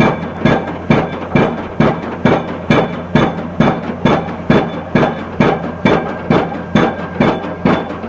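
Hydraulic impact hammer of a Junttan PM 25H pile-driving rig striking a concrete pile at a steady rate of about two blows a second, each a sharp metallic impact. A steady low drone from the rig runs underneath.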